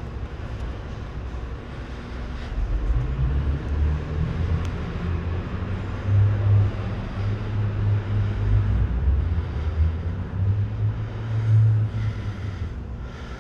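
A heavy engine running with a low rumble that rises and falls in pitch, growing louder about three seconds in.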